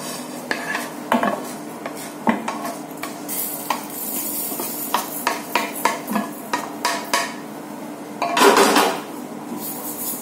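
Spatula scraping and knocking on a non-stick frying pan as roasted urad dal is scraped out of it, with irregular clicks and taps. About eight seconds in comes a louder rush as the dry lentils pour into a steel mixer-grinder jar.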